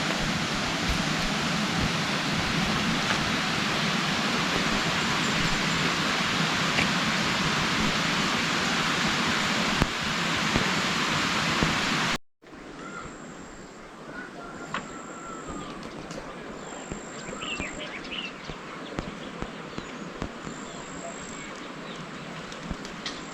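Heavy rain falling as a loud, steady hiss. About halfway through, after a cut, the rain is quieter, with birds chirping and high steady insect-like tones coming in short stretches.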